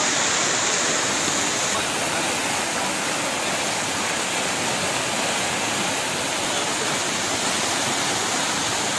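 Fast-flowing muddy floodwater rushing and churning in a steady, even rush of water noise.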